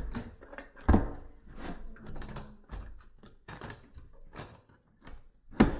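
Newly installed doorknob and smart key lock being worked by hand: a run of small mechanical clicks from the latch and lock mechanism, with two louder clacks, one about a second in and one near the end.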